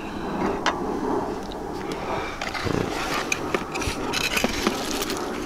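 Light clicks and scrapes of a steel door-hinge bracket being handled and of a hand rummaging through a cardboard box of parts. The clicks grow busier in the second half.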